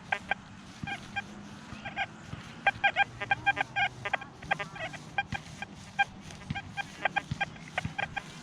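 XP Deus II metal detector's audio giving many short, same-pitched beeps in quick irregular clusters as the coil sweeps the ground.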